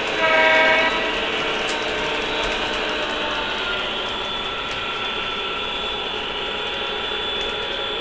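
O-gauge model diesel locomotive's electronic horn sounds one short blast in the first second. After that the model train runs steadily, its motor gearing and wheels clattering over the track.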